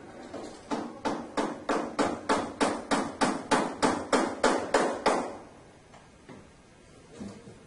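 Hammer tapping a nail into the wood of a pool table, about three quick even strikes a second and getting louder, then stopping about five seconds in.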